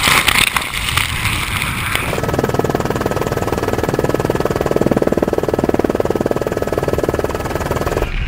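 Rushing water and spray over the microphone for about two seconds. It then gives way abruptly to a steady, fast, even pulsing mechanical noise, typical of a helicopter's turbine and rotor heard from on board.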